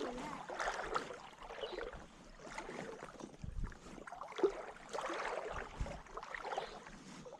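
Water sloshing and splashing with scattered knocks and thuds. The sharpest knock comes about four and a half seconds in.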